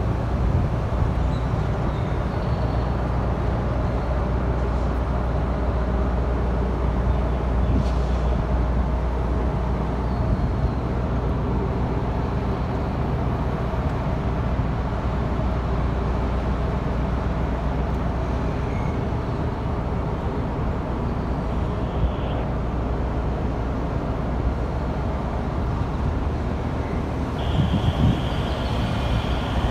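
Steady low drone of heavy engines running at idle, without change. A faint high whine comes in near the end.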